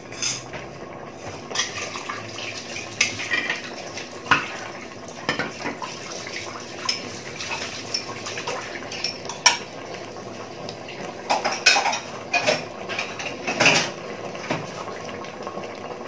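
Pork bone stew cooking in an open stainless steel pot on a gas burner, its sauce being thickened. Irregular pops and metallic clinks sound over a steady low hiss.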